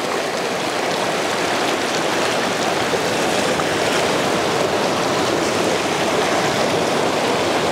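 Ocean surf breaking and washing over rocks close by: a loud, steady rush of churning water that swells up at the start and then holds.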